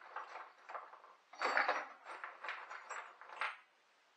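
Metal clinks, knocks and scrapes from a small bench vise being handled and adjusted: a run of short, irregular knocks, the loudest about a second and a half in.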